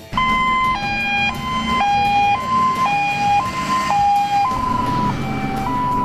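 Fire engine's two-tone siren, switching between a high and a low note about every half second, with the truck's diesel engine running underneath as it pulls away.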